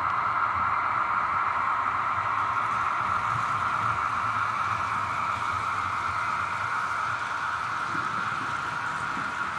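Märklin H0 model train running on the layout: a steady whirring rumble of motor and wheels on the track, slowly getting a little quieter.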